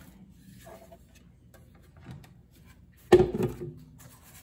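Faint handling noise, then a single hard knock with a short ring about three seconds in as the plastic blender jar is set down on the countertop.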